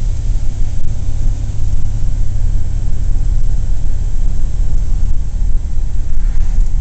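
Cabin noise inside a moving 1941 Plymouth: its flathead straight-six engine running under way, mixed with road and wind noise, as a loud, steady low rumble.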